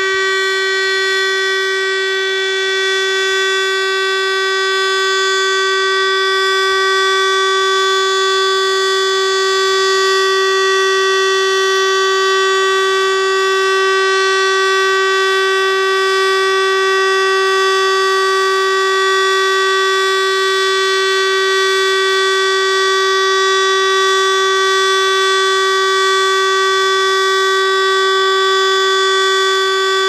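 Civil-defence siren sounding the Austrian 'Warnung' (warning) signal as a test: one loud, steady, unbroken tone that neither rises nor falls. This is part of the three-minute continuous tone that warns of an approaching danger.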